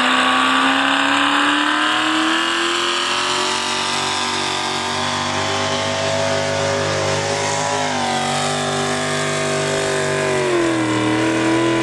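Modified pulling tractor's engine running hard under load as it drags a weight-transfer sled down the track. It holds a steady high pitch that climbs slowly, sagging briefly twice in the second half.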